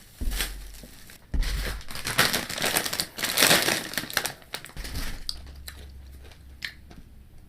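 Snack packaging crinkling and rustling as it is handled, in dense bursts for about five seconds, then dying away to a few faint clicks.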